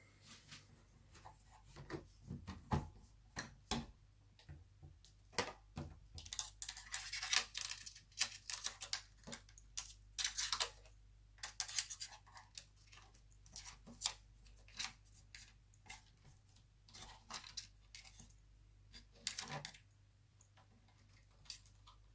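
Irregular small clicks, taps and scraping of laptop parts and screws being handled during reassembly, with a denser stretch of scratchy rustling in the middle.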